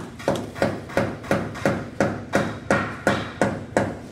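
Steady hammering at a building site: about a dozen evenly spaced blows, roughly three a second, each ringing briefly.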